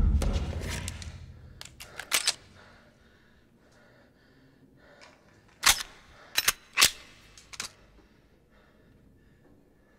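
A pistol shot fired inside a tank's steel hull, its boom dying away over about a second and a half. Then sharp metallic clicks of a handgun being handled: a pair about two seconds in and four more between about five and a half and eight seconds.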